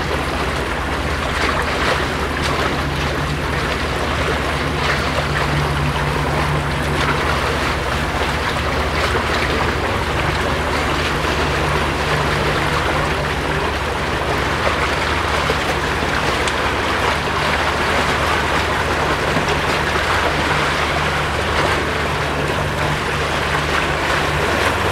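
Outboard motor of a center-console boat running steadily as it passes, a constant low hum under a steady hiss of wind and water.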